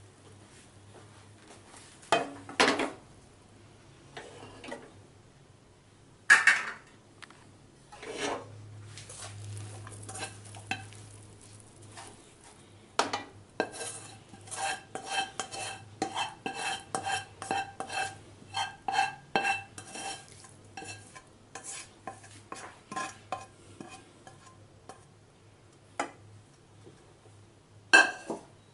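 A slotted spatula scraping and knocking against non-stick cooking pans as cooked vegetables are scraped out of one pan into another. There are a few separate knocks at first, then about ten seconds of quick repeated scrapes and taps with the metal pan ringing, and two more knocks near the end.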